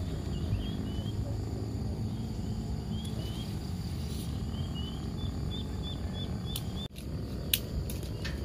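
Outdoor ambience with a steady low rumble and a bird's short rising chirps, repeated quickly for a stretch. Near the end come a few sharp clicks as aluminium tent pole sections are pulled apart and folded.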